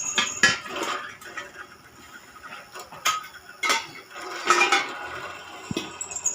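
Metal pieces clinking and knocking against each other: about five separate sharp clanks, two close together at the start and three more spread through the middle.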